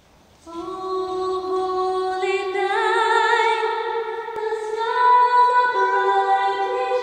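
Female voice singing long held notes, layered in harmony, entering about half a second in, with new notes added over it and vibrato on one note around three seconds in.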